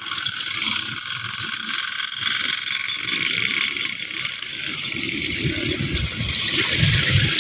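A small engine running with a steady mechanical rattle, the low rumble growing louder near the end.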